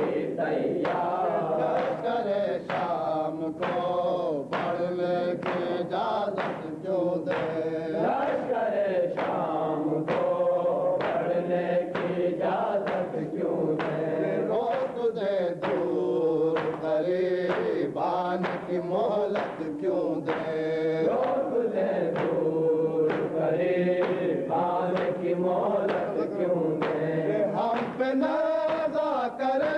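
Men chanting a noha, a Shia lament, in a steady unbroken melody, with a regular beat of hands slapping chests (matam) under the voices.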